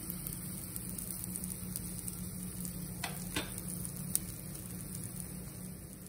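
Pancake batter sizzling softly in an oiled non-stick pan on low-medium heat, with a fine crackle. About three seconds in, two short sounds slide down in pitch, and a sharp click comes just after four seconds.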